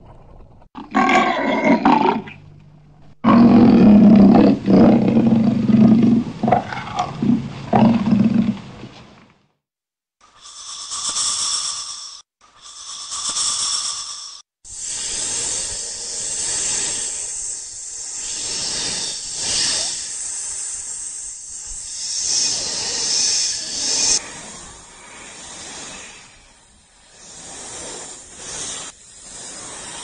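A tiger roars: a short roar about a second in, then a long deep growling roar lasting about six seconds. After a brief pause, a snake hisses, first two short hisses and then a long continuous hiss that swells and fades.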